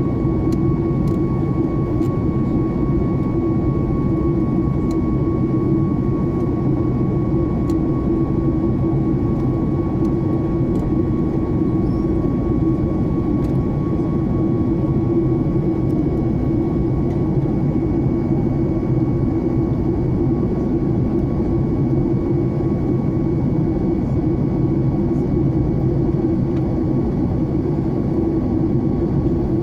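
Steady cabin noise of a jet airliner in flight: a constant drone of engines and rushing air, heavy in the low end, with a faint steady whine above it.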